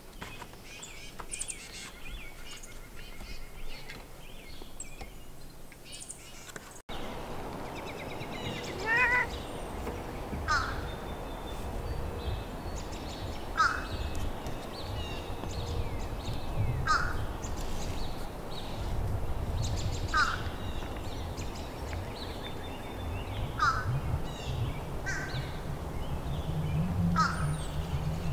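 A bird calling again and again, one short call every three seconds or so, over wind noise on the microphone.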